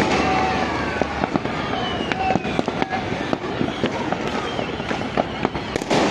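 New Year fireworks going off in many rapid, overlapping bangs and crackles, with a sharp loud bang right at the start and another near the end.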